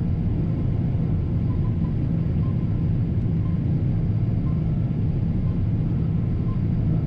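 John Deere T670i combine harvester running steadily while cutting oats: an even low drone.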